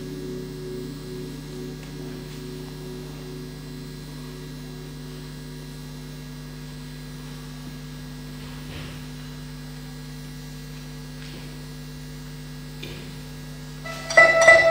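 A steady low hum, with a higher musical tone fading out over the first few seconds. Near the end, plucked-string music comes in loudly.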